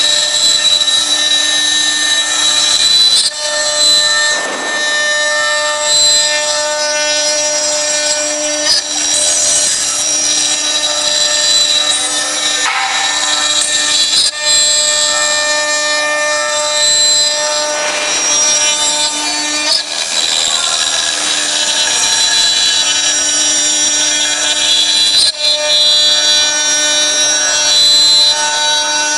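A 4-axis CNC router's spindle is running with a steady whine while its bit cuts and rasps into a gourd turned on the rotary axis. Several steady tones come and go as the machine moves.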